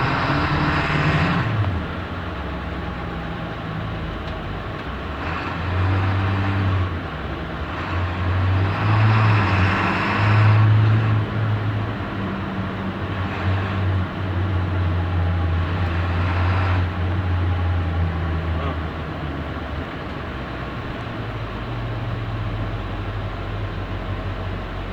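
2004 Blue Bird school bus under way, heard from inside: its engine drones with road noise, the engine note dipping and swelling as the throttle and gears change, loudest about ten seconds in.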